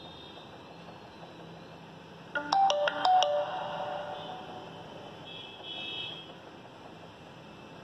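JioPhone (LF-2403N) startup jingle from its small speaker as it boots after a hard reset: a quick run of bright electronic notes about two and a half seconds in, lasting about a second and dying away. A fainter tone follows near six seconds.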